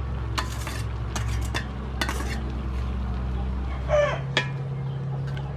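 Metal spatula scraping and clattering in a wok as razor clams, pineapple and onion are stir-fried, with a chicken's short call about four seconds in.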